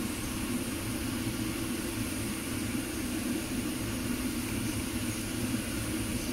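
A steady, even mechanical drone with a faint hiss on top, unchanging throughout.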